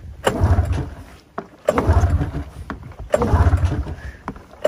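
Pull-starting a 2006 Arctic Cat F7 snowmobile's fuel-injected two-stroke twin on its stock exhaust: three recoil pulls, each cranking the engine over briefly without it running. It catches and starts running steadily right at the end. It takes a few pulls because the pulls aren't hard enough.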